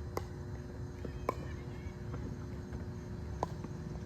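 Tennis ball impacts during ball-machine practice: three sharp, hollow pops at uneven intervals, from balls being struck, bouncing or launched, over a steady low rumble.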